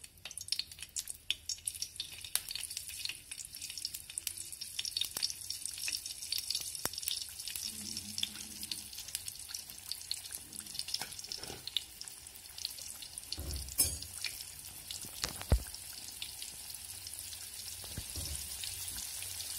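Rice-flour-coated surmai (king mackerel) slices shallow-frying in hot oil in a pan: steady sizzling with dense crackling pops. Two sharp knocks stand out about two-thirds of the way through.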